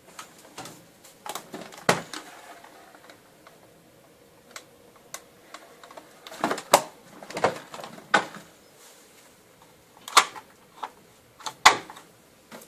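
Irregular clicks and knocks of a vacuum cleaner's hard plastic parts being handled, in clusters with pauses between; the motor is not running.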